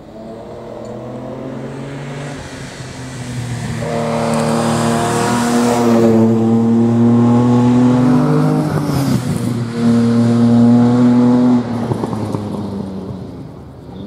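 Hillclimb racing car accelerating hard up the course past the microphone, its engine note climbing and growing louder. About nine seconds in the note breaks and drops briefly for a gear change, picks up again, then falls away as the car goes on up the hill.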